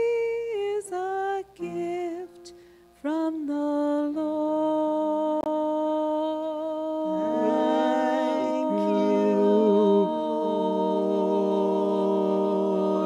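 Small church ensemble of singer, violin and keyboard finishing a hymn: a last sung phrase, then a long held final chord of several notes that stops all at once.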